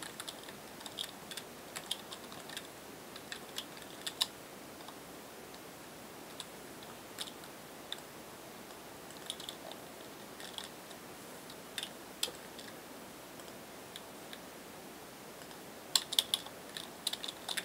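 Computer keyboard keys being typed in short, scattered bursts of a few keystrokes, with pauses of a second or more between them.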